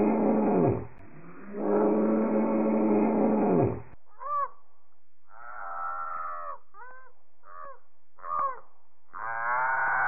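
Designed monster roars made from longhorn steer bellows: two long, deep bellows, each falling away at the end. From about four seconds in come cries built from monkey calls: short rising-and-falling shrieks and longer wavering calls.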